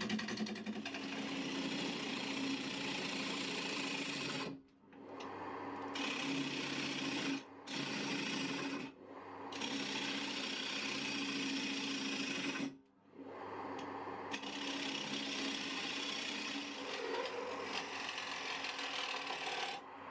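Wood lathe running, its motor humming steadily, while a hand-held turning tool cuts the outside of a spinning poplar bowl, giving a rough, scraping hiss as the shavings come off. The sound cuts out briefly a few times.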